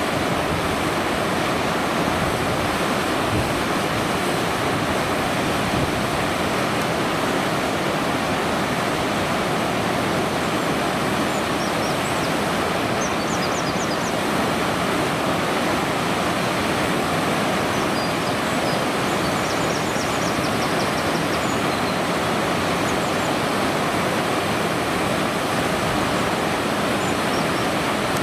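Steady rush of flowing water, as from a river weir, with a few faint high bird chirps in the middle.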